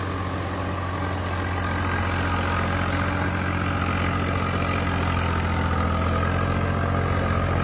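Swaraj 855 tractor's three-cylinder diesel engine running steadily under load while pulling a PTO-driven 9-foot rotavator through soil in third gear. The engine note holds even, with no RPM drop: it is not labouring under the wide rotavator.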